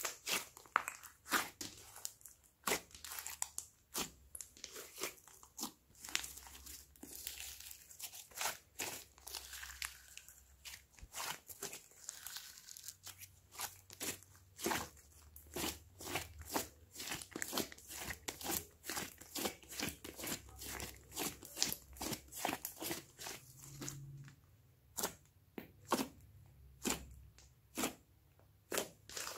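Hands squeezing, stretching and poking a large lump of glossy slime. It gives many irregular sharp clicks and pops, several a second.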